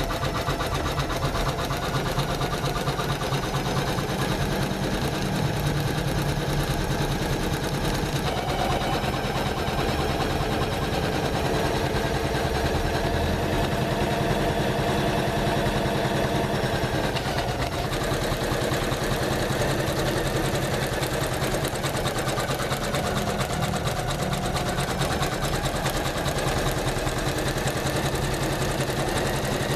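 Janome MC500E computerized embroidery machine stitching steadily, a fast, even mechanical rattle of the needle. The running sound changes character about eight seconds in and again about eighteen seconds in.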